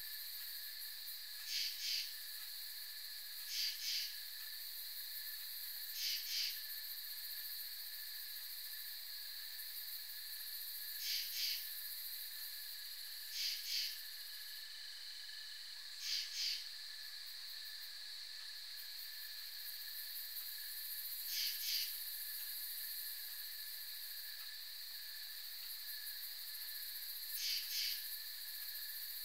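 Night insects: a steady high-pitched drone, with a short two-pulse raspy call repeating about eight times at uneven gaps of two to five seconds.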